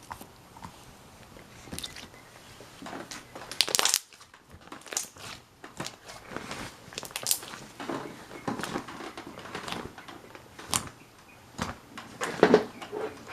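Hands squishing, pressing and stretching thick slime: an irregular run of sticky pops, clicks and crackles, with louder squelches about four seconds in and near the end.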